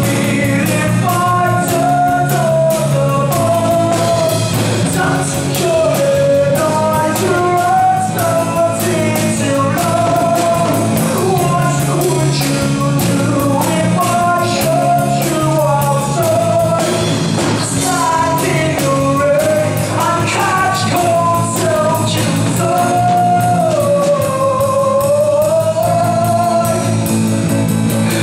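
Live rock song from a stage musical: a male singer's voice carries the melody over a rock band, with a steady drum beat and bass.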